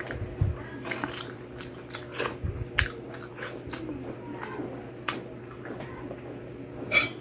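Close-miked chewing of crispy pata (deep-fried pork leg), with irregular crunchy crackles from the fried skin and a sharper click near the end, over a steady low hum.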